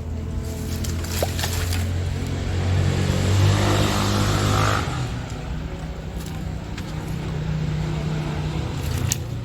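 A motor vehicle engine running, growing louder to a peak about four seconds in and then fading, as it would when a vehicle passes close by.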